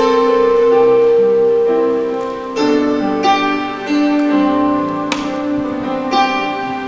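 Slow, sustained chords on a keyboard-like instrument, played as the instrumental introduction to a worship song. The first chord is held, and new chords are struck about every second from a little past halfway.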